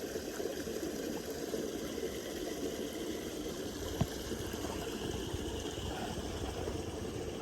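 Steady rush of flowing stream water, with one faint click about four seconds in.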